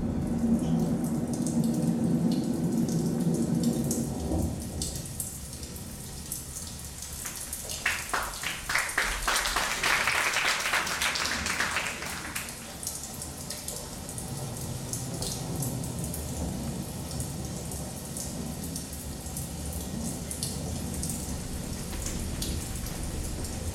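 Rain sound in a stage dance's soundtrack: a low sustained drone fades out about four seconds in, then a steady patter of drops with a low rumble, thickening into a dense crackling shower about eight to twelve seconds in.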